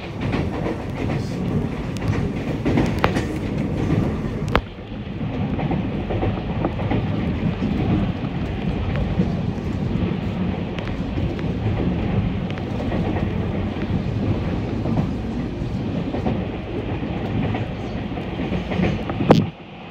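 Commuter electric multiple unit train running at speed, heard from inside the carriage: a steady rumble of wheels on rails with occasional sharp clicks over rail joints.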